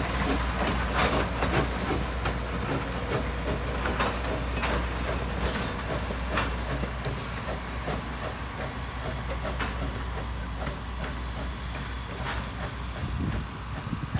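A 1920 Baldwin steam locomotive and its short passenger train rolling slowly past, with a steady low rumble and many sharp metallic clicks from the wheels, growing a little fainter as the train moves away.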